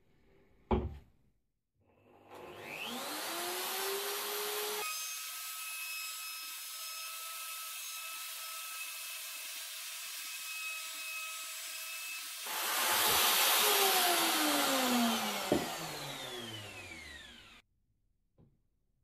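Plunge router with a rebate and profile cutter: the motor spins up with a rising whine about two seconds in and runs at speed. It grows louder as the cutter plunges into the plywood around the hole, then is switched off and winds down with a falling whine, stopping about a second before the end.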